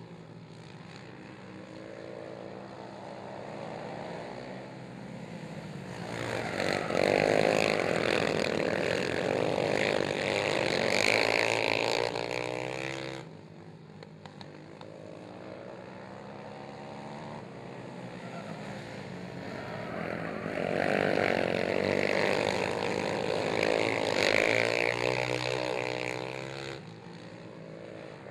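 Two racing quad ATVs' engines revving hard, the pitch rising and falling as the riders work the throttle through the turns. The sound swells loud twice as the quads come close, and drops off between.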